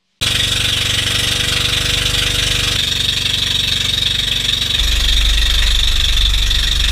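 Outrigger boat's inboard engine running steadily at cruising speed, a loud, fast-pulsing drone with a hiss of wind and water over it. A deeper rumble joins about five seconds in.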